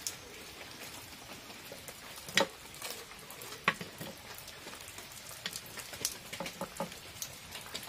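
A person eating fried samosas in a hurry: the pastry crackles faintly as it is bitten and torn apart, with a few sharp clicks over a light steady hiss. The loudest click comes about two and a half seconds in, and a run of smaller ones follows near the end.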